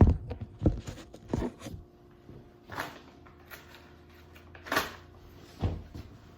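Irregular knocks, bumps and rustles of electrical cables and tie wraps being handled and pressed into place, about six in all, the loudest at the start.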